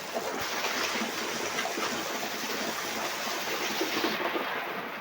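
Steady rain falling: an even hiss made of many small drop impacts, constant in level.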